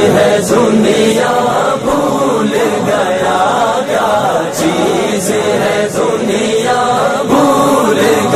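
Vocal music: an Urdu devotional kalam (naat) sung by layered voices.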